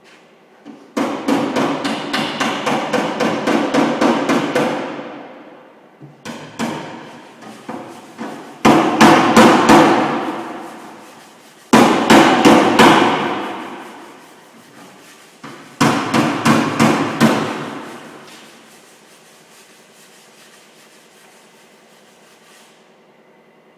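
Hammer blows on the sheet-steel rear fender of a Mitsubishi L200 pickup, panel beating out dents. There are four runs of quick strikes, about four a second, and after each run the panel rings and dies away. The middle two runs are the loudest.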